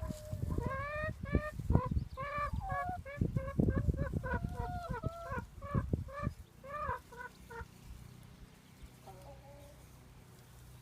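Chickens calling in a rapid run of short, pitched calls for about seven seconds, then one faint call near the end, over low rumbling.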